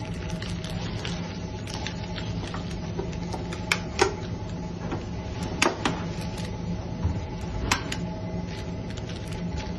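Baking paper crinkling as it is folded around fish, with several sharp clicks of a hand stapler as the parcel's edge is stapled shut. A steady low hum runs underneath.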